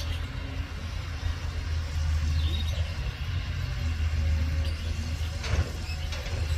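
Hitachi Zaxis 200 excavator's diesel engine running with a low drone that swells and eases as the boom and arm are worked. There is a short knock about five and a half seconds in.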